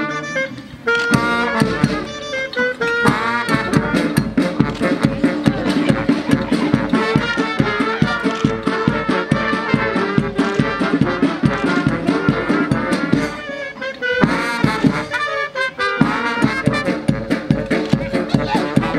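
Brass band music with trumpets and trombones over a quick, steady drumbeat, breaking off briefly about a second in and again about two-thirds through.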